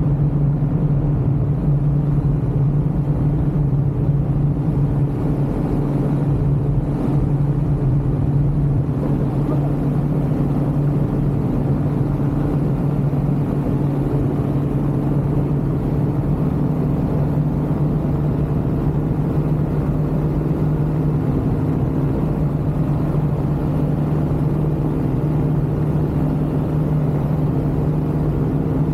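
Ultralight aircraft engine running at a constant speed: a steady, unchanging low-pitched hum over a rumble.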